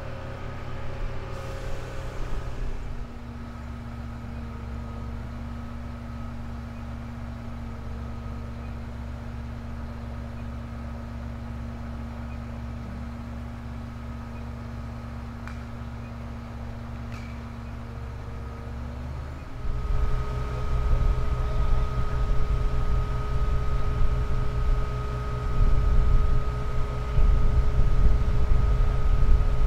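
Heavy vehicle engine running steadily with a held whine over it, growing louder and rougher about two-thirds of the way through.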